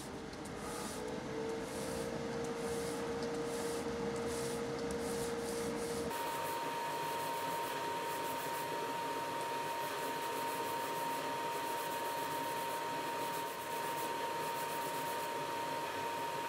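Thin wooden strip rubbed back and forth by hand on a sheet of sandpaper laid flat on the bench: steady sanding strokes. A steady machine hum runs underneath and jumps to a higher pitch about six seconds in.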